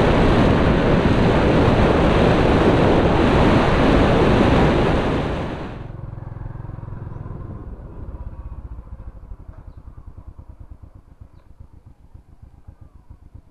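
Motorbike riding along a road, its engine and heavy wind noise on the microphone, which cut off suddenly about six seconds in to a much quieter outdoor background with faint low regular pulses.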